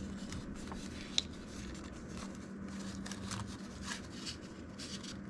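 Paper dollar bills handled by hand: soft, irregular rustles and crinkles as the notes are counted and slid into a paper cash envelope, over a steady low hum.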